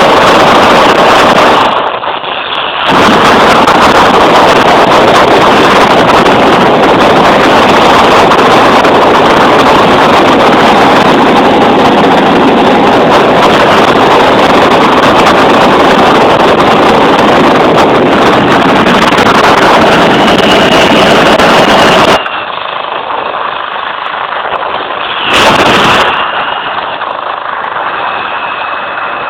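F-16 fighter's jet engine noise, very loud and dense, with a faint high whine. The sound breaks off briefly about two seconds in. After about 22 seconds it drops to a quieter, duller engine noise, with one short loud surge a few seconds later.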